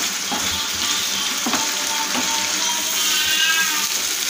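Thick masala paste sizzling in oil in a nonstick frying pan, stirred and scraped with a wooden spatula: a steady frying hiss with a few soft scrapes. The masala is at the stage where the oil begins to separate from it.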